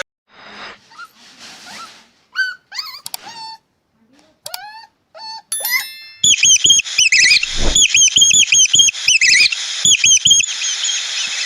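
High-pitched animal squeaks and chirps: a few scattered short calls, some sliding in pitch, then about six seconds in a fast run of repeated chirps that lasts about four seconds before stopping.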